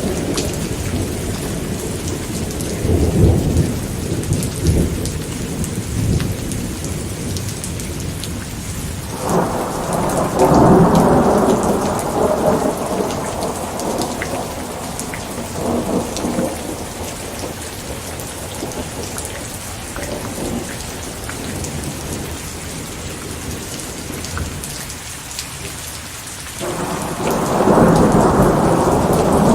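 Steady heavy rain falling, with rolling thunder rumbling over it several times. The loudest rumbles swell about nine seconds in and again near the end.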